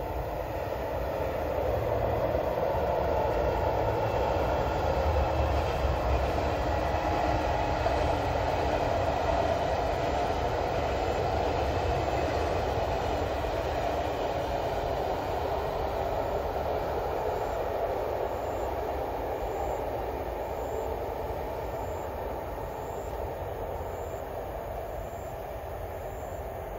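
SRT high-speed train, a KTX-Sancheon-type trainset, passing at speed without stopping: a steady rush of wheels on rail and air with a low rumble, swelling over the first couple of seconds and slowly fading as it moves away.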